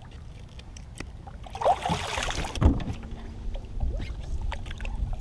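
A catfish splashing and thrashing at the water's surface for about a second as it is grabbed with a fish gripper and lifted beside the boat, followed by a few light knocks.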